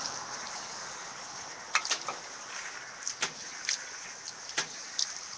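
Water spraying from a water-fed pole's brush head onto window glass as a steady hiss, with short sharp clicks and knocks from the brush and pole working the pane every second or so.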